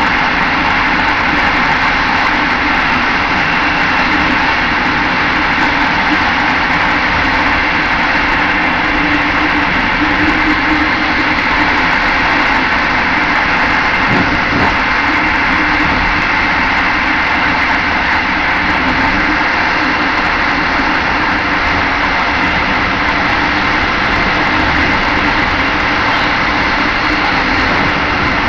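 Passenger train carriage running at speed, heard from inside: a steady rumble and hiss of wheels on the rails that holds level throughout.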